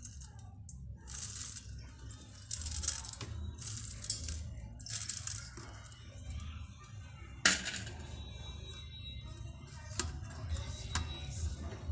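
Sugar granules poured in spurts from a small brass bowl, pattering and hissing onto a steel plate. There is a sharp clink about seven and a half seconds in, then softer rubbing and clicks as a hand works the sugar over a metal idol.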